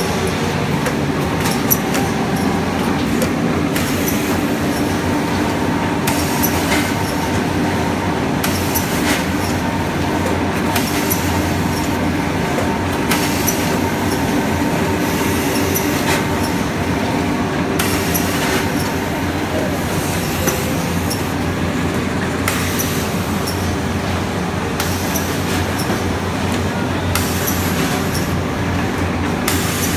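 Industrial book sewing machine running: a loud, steady mechanical clatter and hum, with its working cycle repeating about every two seconds.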